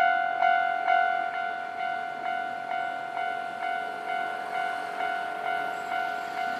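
Japanese railway level crossing's electronic warning bell ringing its repeated 'kan-kan' tone, about two strikes a second, signalling a train is coming.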